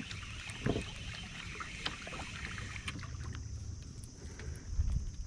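Low rumble of wind and water around a small open boat, with scattered light knocks and ticks; a louder low thump comes near the end, and a faint steady high hiss sets in about halfway.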